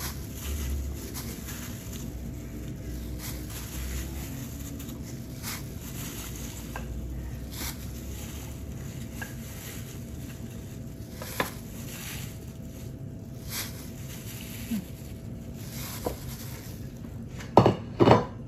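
Raw chicken pieces being set by gloved hands into a large aluminium pan: scattered soft taps and clicks on the metal, with two louder knocks close together near the end, over a faint steady hum.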